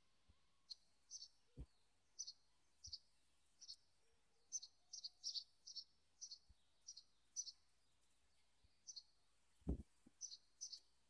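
Faint, repeated short high chirps of a small bird, mostly in quick pairs, coming every half second or so. A dull low thump comes near the end.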